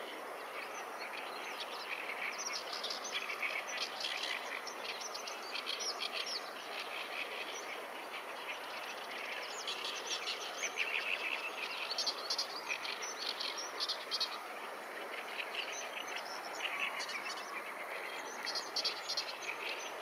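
Small songbirds singing and chirping busily, with short overlapping trills and twitters throughout, over a steady background hiss.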